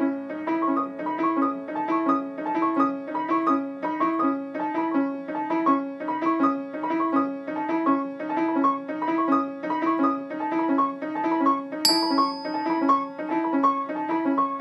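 Piano music playing a fast, evenly repeating figure, with a sharp high ding about twelve seconds in.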